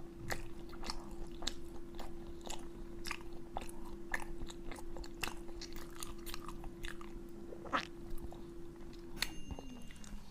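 Close-up chewing and biting of crunchy pig head meat, with many short, sharp crunches. A steady hum runs underneath and slides lower in pitch near the end.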